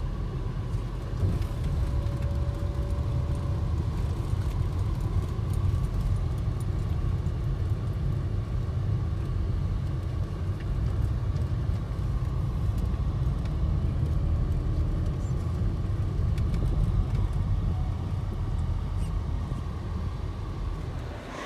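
Steady low rumble of a moving car's road and engine noise, heard from inside the cabin, with a faint steady high hum over it.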